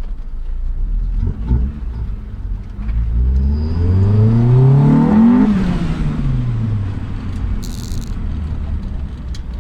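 B20 VTEC engine (2-litre B20 block with a B16 VTEC head) pulling hard under acceleration: the revs climb steeply for about three seconds, then drop as the throttle is lifted. Over the top of the rise the sound is the B16 head's VTEC high-lift cam profile engaging.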